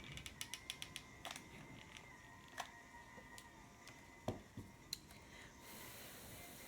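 Faint clicking of a hot glue gun's trigger feed as glue is pressed out: a quick run of about eight clicks in the first second, then single clicks and light knocks about a second apart. A faint high hiss sets in near the end.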